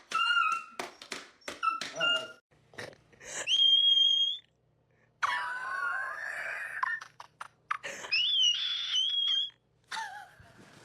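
A pet's high-pitched whining, wailing cries: about five drawn-out calls, some held on one shrill note and some wavering. They come right after it is told no, like an animal protesting back.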